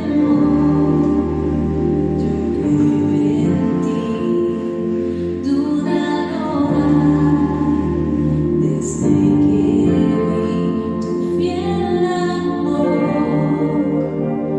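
Worship song: singing over sustained instrumental chords.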